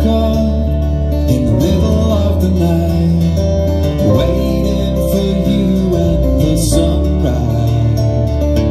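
Live band music: a man singing lead over strummed acoustic guitar, with a steady bass line underneath.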